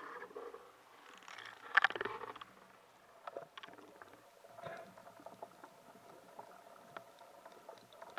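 Underwater sound picked up through a camera housing on a speargun: water rushing past in two brief swishes, the louder about two seconds in, with scattered faint clicks and knocks.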